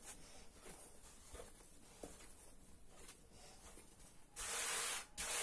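Hands kneading and pressing a ball of dough on a floured wooden board: faint soft rubbing, then two louder rubbing sounds of about half a second each near the end as the hands slide over the board.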